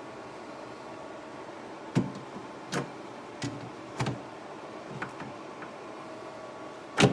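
Irregular knocks and clunks, about seven of them, from objects being handled in and around a small fridge, over a steady hum with faint steady tones. The loudest clunk comes near the end.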